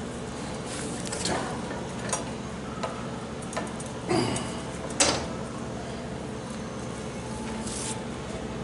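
Scattered clicks and knocks of hand tools and metal parts being handled during work on an automatic transmission, about six in all, the loudest about four and five seconds in, over a steady low hum.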